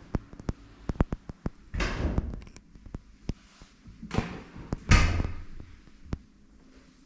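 Several clicks and knocks, with two heavier rumbling thuds, the loudest about five seconds in, as of a door being opened and shut.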